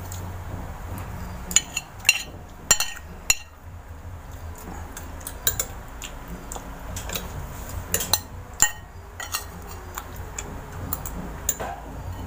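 Eating at a table: short, scattered clicks and light clinks over a steady low hum.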